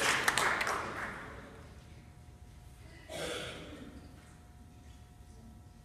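Audience applause dying away over the first second, leaving a hushed hall. A short breathy sound comes about three seconds in.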